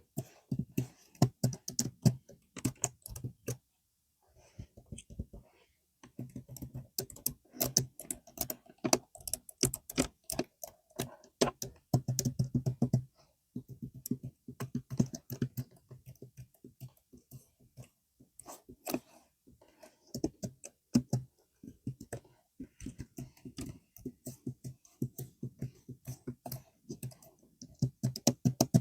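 Typing on a computer keyboard: fast runs of key clicks broken by a few short pauses.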